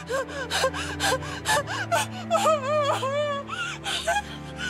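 A woman sobbing and wailing, with sharp gasping breaths and a wavering, quavering voice, over a soft sustained music score.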